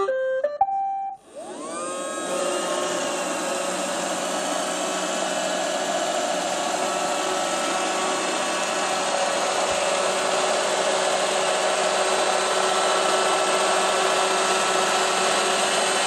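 iRobot Roomba 563 Pet robot vacuum starting up. It plays a short melody of stepped beeps, then its motors spin up with a rising whine about a second in and run steadily.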